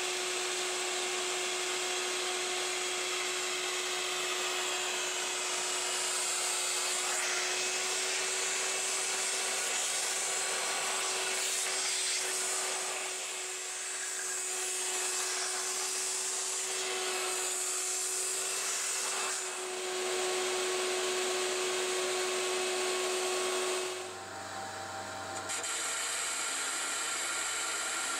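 9x20 benchtop metal lathe running under CNC, turning a cast iron backing plate: a steady motor whine under a hissing, scraping cutting noise that rises and falls. Near the end the whine stops and a low hum and hiss remain.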